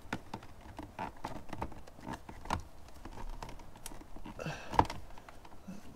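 Hard plastic lower-dash trim panel being handled and worked free, giving irregular small clicks and taps, with one sharper click about five seconds in.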